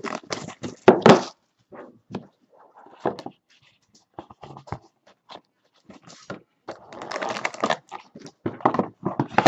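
A plastic wrapper crinkling as it is crumpled, then a cardboard trading-card box being handled and opened, with scattered taps and knocks. A denser rustle near the end as the cards are slid out.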